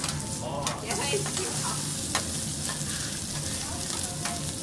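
Beef sizzling on a steel teppanyaki griddle while metal spatulas scrape and tap against the hot plate, with several sharp clicks.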